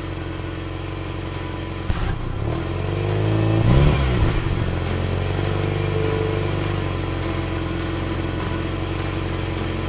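Car engine sound running steadily, with a rev that swells up and back down about four seconds in.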